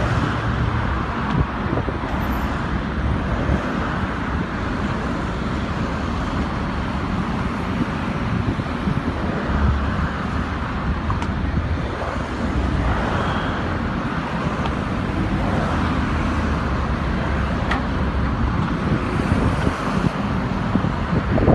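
Steady low rumble of heavy truck diesel engines running, mixed with road traffic noise.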